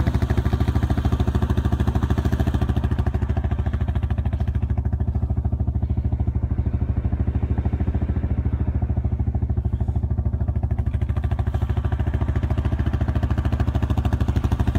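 Engine of a small handlebar-steered vehicle, such as a quad bike, idling steadily with a fast, even pulse and no revving.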